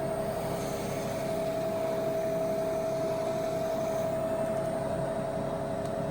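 Air conditioner unit running with a steady hum and a constant tone, its compressor and fan working while refrigerant gas is being charged.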